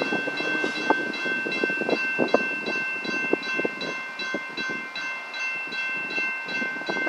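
Railroad crossing warning bell ringing with rapid, evenly spaced dings over a steady high ring, with irregular knocks and a rumble beneath.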